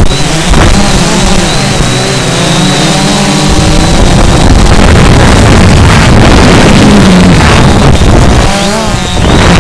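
Quadcopter's electric motors and propellers whining as heard from the aircraft's own camera, the pitch wavering up and down as the throttle changes, with wind rumbling on the microphone.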